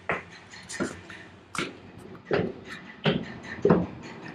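Footsteps climbing stone steps and walking onto a stone floor, about one step every three-quarters of a second, each a sharp knock with a short echo.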